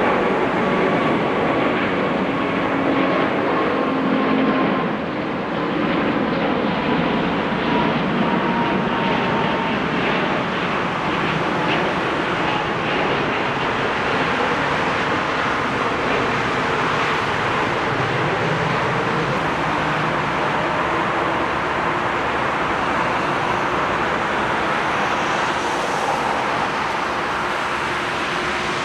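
Airbus A380's four Rolls-Royce Trent 900 jet engines at takeoff power as it climbs out: a steady jet roar with a faint whine slowly falling in pitch.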